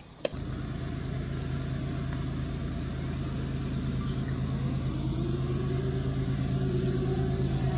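Diesel locomotive engine throbbing steadily as an approaching train draws nearer, growing gradually louder, with a higher rising tone joining about halfway through.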